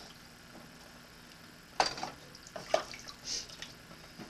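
A wooden spoon stirring water and chicken pieces in an enamel pot: liquid sloshing, with a few sharp knocks of the spoon against the pot, the loudest about two seconds in.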